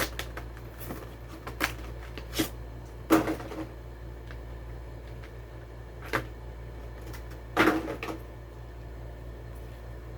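Sharp clicks and crinkles of a die-cast toy car's plastic and cardboard packaging being handled and opened, about six separate sounds, the loudest about three seconds in and near eight seconds.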